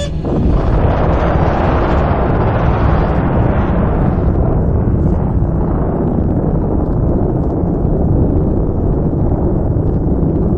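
Atomic bomb blast on a test film's soundtrack: a dense rumble swells about half a second in, its hiss thinning after a few seconds while the deep rumble goes on.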